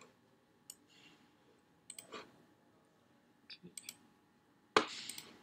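Several short, sharp computer-mouse clicks scattered across a few seconds, with one louder knock near the end.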